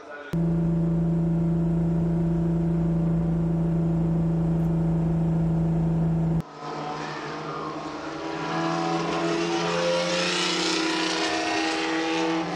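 Engine of a Ferrari racing car heard from inside the cockpit, running at a steady pitch while cruising behind the safety car at about 74 km/h. About six seconds in it cuts to a classic racing car driving past at trackside, its engine note rising as it goes by.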